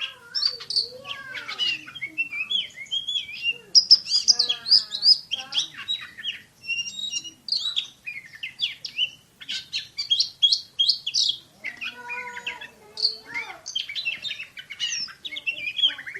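Oriental magpie-robin (kacer) singing a fast, nearly unbroken song of short, sharp high notes packed tightly together, the rapid 'tembakan' (shooting) delivery prized in kacer song contests.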